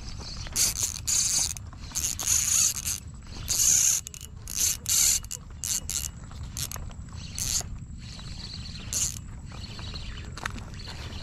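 Fishing reel being cranked in a series of short bursts, the line being wound in on a lure retrieve. The bursts are heaviest in the first half and come more sparsely later.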